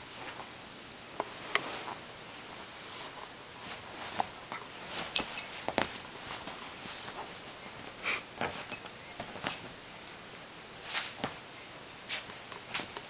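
Small dog digging at a fleece blanket on a bed: irregular scratches and rustles of paws and nose working the fabric, loudest in a quick cluster about five seconds in.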